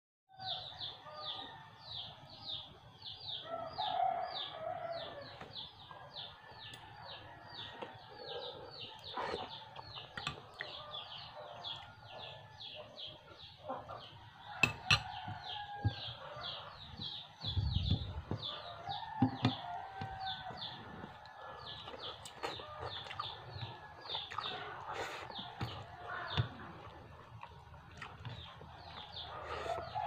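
Fowl calling: a steady run of short, high, falling chirps, about three a second, with lower clucking calls now and then. Occasional soft clicks and a low thump come from eating by hand off a plate.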